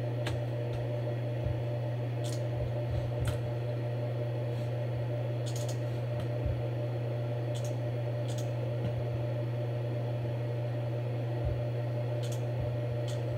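Scattered computer mouse clicks, about ten spread irregularly, over a steady low hum.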